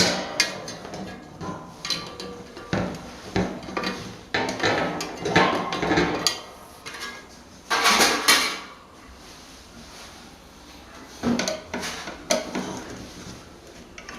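Metal parts of an old table fan clanking and clinking irregularly as they are handled, with a brief louder rasping noise about eight seconds in.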